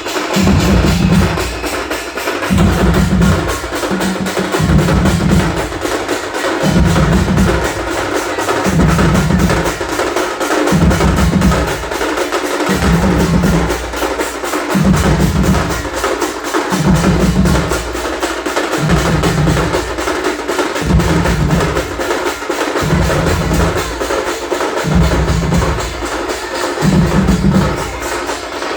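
Drum music: a steady repeating rhythm with a deep drum stroke about every two seconds under quick, dry tapping.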